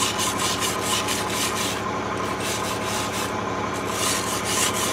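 Hand wire brush scrubbing slag off a stick weld on steel, in quick back-and-forth strokes about four a second, over a steady machine hum.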